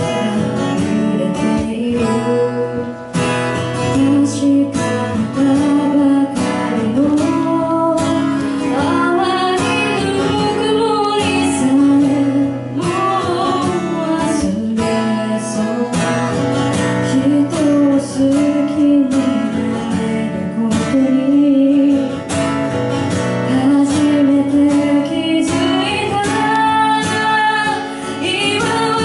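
A woman singing live into a microphone, accompanied by a strummed acoustic guitar.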